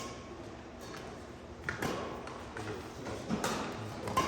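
Badminton rackets striking a shuttlecock in a rally: a few sharp hits roughly a second and a half apart.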